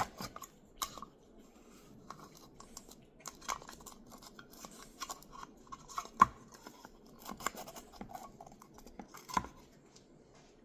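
Small kitchen handling sounds as a tablespoon of baking powder is measured out: a measuring spoon and container scrape and click, with a few sharp knocks, the loudest about six seconds in and another near the end.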